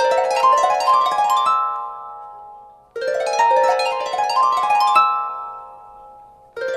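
A Samsung phone ringtone looping: a quick run of rising notes over a held low note, fading away and starting again about every three and a half seconds.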